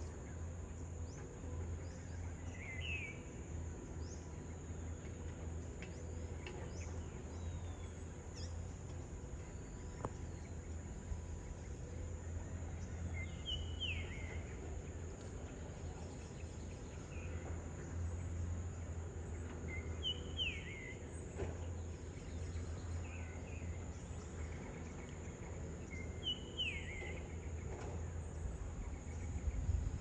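Distant Komatsu hydraulic excavator's diesel engine as a steady low drone, under a steady high insect buzz. A bird repeats a short falling call every few seconds.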